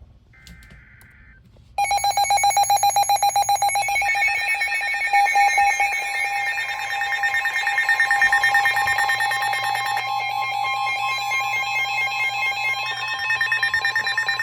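A brief buzzing burst of Emergency Alert System header data, then a loud, steady two-tone emergency alert attention signal from about two seconds in, buzzy and pulsing. It is the tone that comes before a new warning is read on weather radio.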